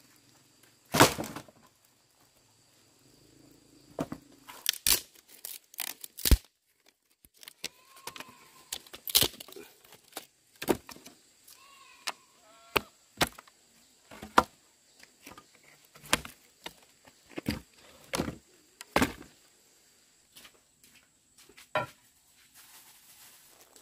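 Dry split wood being dropped in a heap on bare dirt, a loud clatter about a second in, then broken and pulled apart by hand: a long run of separate sharp cracks, snaps and knocks.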